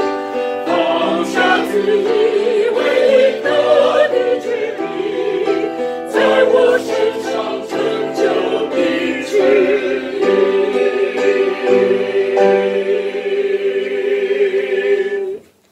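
Mixed choir singing the closing phrase of a hymn in parts. It ends on a long held chord that cuts off cleanly near the end.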